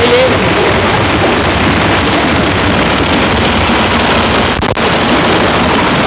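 Lift concrete mixer machine's engine running loud and steady with a rapid, even pulse.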